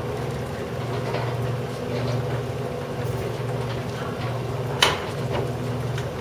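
Escalator machinery running with a steady low hum that pulses gently, and one sharp click near the end.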